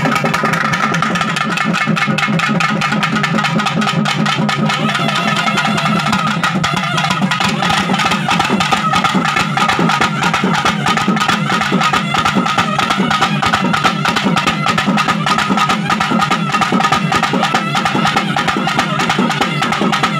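Traditional Tamil festival music for a Kali dance: fast, dense drumming over a steady held tone.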